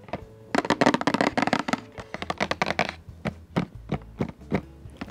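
Fingers tapping and scratching on a cardboard product box for ASMR: a dense run of crisp taps for the first few seconds, then single taps spaced apart.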